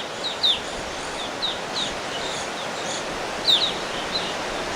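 Evening grosbeaks calling in a flock: short, high, down-slurred chirps scattered through, over a steady background hiss.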